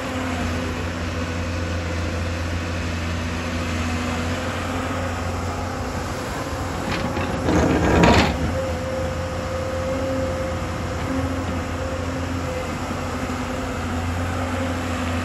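Hyundai 220LC crawler excavator's diesel engine running steadily under working load, with a steady hum. About halfway through comes one loud crunching scrape lasting about a second, as the bucket works earth and rock.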